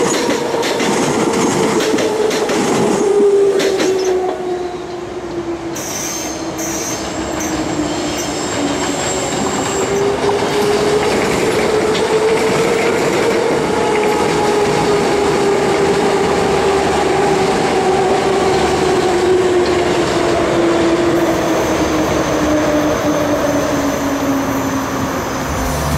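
Transperth A-series electric multiple unit trains running past at low speed, with the rumble and clatter of wheels on rail under a whine that drifts in pitch and slides lower near the end.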